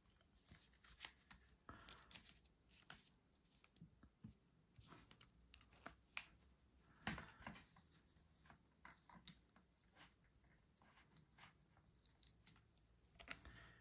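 Faint rustling of small doll clothes and scattered light clicks as hands undress a fashion doll and dress it in a skirt and shirt, with a few sharper clicks, the loudest about seven seconds in.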